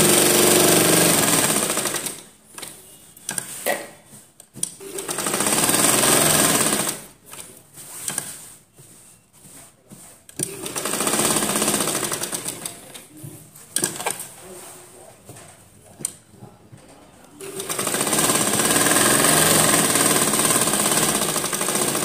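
Humsafar domestic sewing machine stitching through fabric, running in four spells of a few seconds each. Between the spells come quieter pauses with small clicks and rustling.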